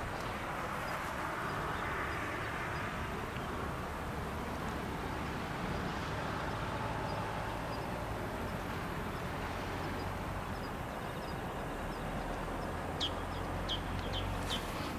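Steady seaside ambience: a wash of wind and distant waves with a low rumble. A few short, high bird chirps come near the end.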